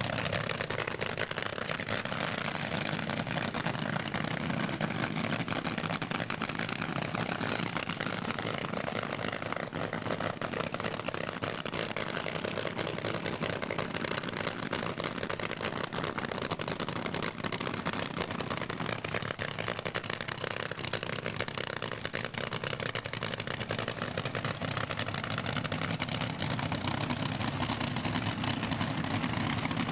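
Supercharged dragster engines running steadily at idle and low speed, a dense, continuous engine sound with no pauses.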